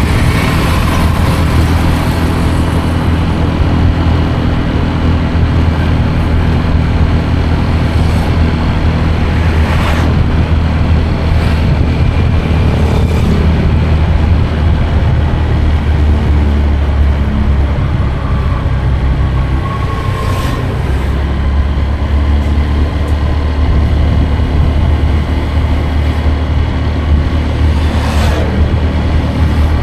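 A vehicle engine running steadily while under way, with a strong low drone. It eases briefly about two-thirds of the way through, and a few short whooshes rise over it.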